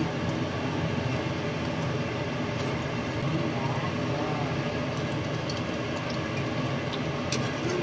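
Hot oil sizzling steadily in a frying pan around filled spring-roll-wrapper parcels as they pan-fry, with a few light clicks near the end.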